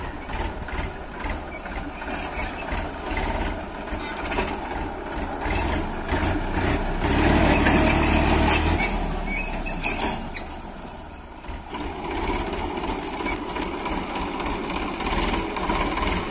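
Farm tractor's diesel engine running under load while pulling a tine cultivator through dry soil. It gets louder for a couple of seconds around the middle as the tractor passes close by.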